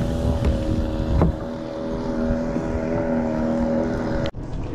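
Boat motor running steadily at an even pitch, with a single knock about a second in; the sound cuts off suddenly near the end.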